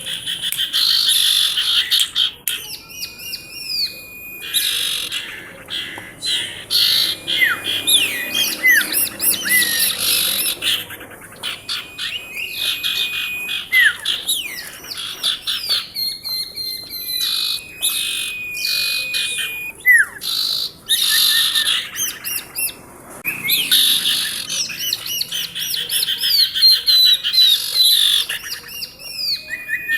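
Female sirtu songbird calling busily: rapid strings of sharp chirps and trills, with a held whistled note now and then and a few short pauses.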